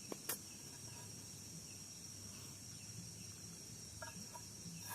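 Steady high-pitched insect chirring, typical of crickets in a forest at night, with two short sharp clicks right at the start and a couple of faint short calls about four seconds in.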